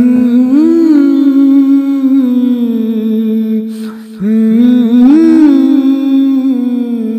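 A male singer's voice vocalising a wordless, ornamented naat melody in two long held phrases, with a short break about four seconds in.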